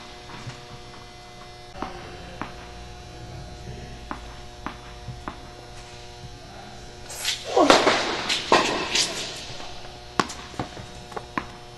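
Tennis ball knocks and bounces on an indoor hard court, several short sharp taps, with a quick run of bounces near the end as a serve is readied. About two thirds of the way in comes a loud scuffing squeal lasting a second or two, over a steady hum that runs throughout.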